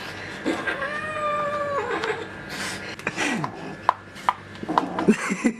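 Kitten yowling while wrestling with a hand. One long drawn-out yowl comes about a second in and drops in pitch at its end, followed by a shorter falling cry. A run of sharp clicks and taps comes near the end.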